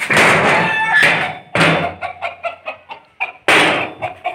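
Painted sheet-metal coop door being unbolted and swung open, with loud metal rattling and banging in three bursts, the longest at the start, and chickens clucking in between.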